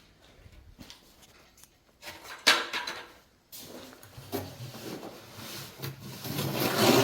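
Scraping and rubbing of a tool working wet cement mortar: one sharp scrape about two and a half seconds in, then a longer run of scraping that grows louder near the end.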